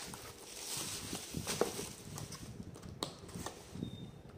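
Cardboard pizza boxes being handled and opened: rustling, with a few light knocks, the sharpest about a second and a half in.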